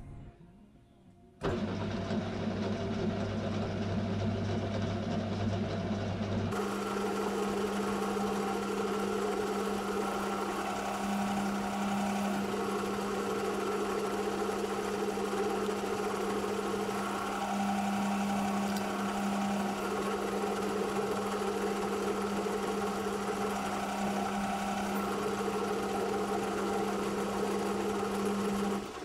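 Metal lathe running with a steady motor hum while a large twist drill is fed into a spinning aluminium workpiece. The hum starts about a second and a half in, then about six seconds in shifts to a stronger, brighter tone with more hiss, and stops just before the end.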